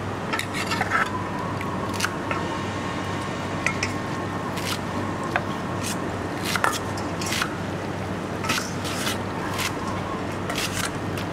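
Two metal spoons tossing a wet glass noodle salad in a stainless steel bowl: irregular clinks and scrapes of spoon against bowl over a steady low background hum.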